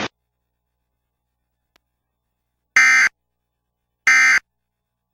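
Emergency Alert System end-of-message data bursts: after a few seconds of silence, two short, identical screechy digital warbles about a second and a half apart, the coded signal that closes the tornado warning.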